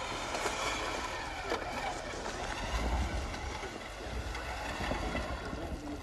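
Vehicle engine running in deep snow, a low rumble over a steady hiss, swelling briefly about three seconds in and again near the end.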